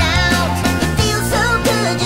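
Sped-up, pitched-up rock-style song music in an instrumental stretch with a steady beat.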